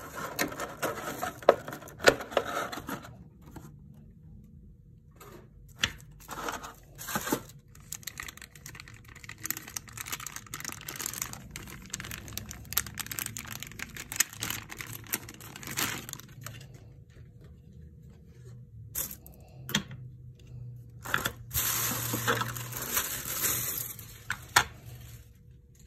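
Clear plastic figure packaging being handled: a blister tray and a thin plastic bag crinkling and rustling as the bag is peeled off a black display base, with scattered sharp clicks and taps of plastic on plastic.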